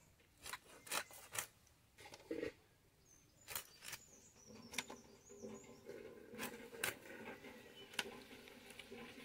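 Aar fish being sliced into pieces on a boti, the upright curved cutting blade: a string of about ten faint, sharp clicks and crunches at irregular intervals.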